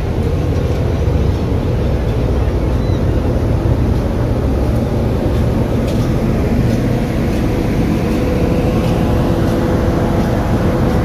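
Steady low rumble aboard a moving car ferry: the ship's engines running and water washing past, with a faint steady hum above the rumble.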